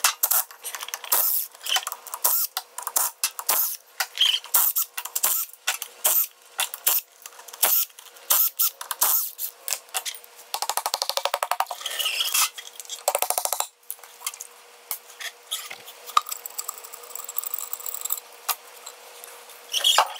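Rear cover bolts coming off a Ford 8.8-inch IRS differential: a cordless power tool runs in rapid rattling bursts, the longest two around the middle, amid repeated metallic clinks and clanks of bolts and tools.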